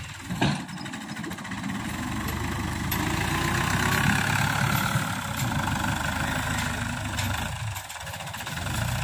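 Farm tractor's diesel engine pulling a trolley through mud, working harder and louder through the middle before easing off near the end. A single sharp knock about half a second in.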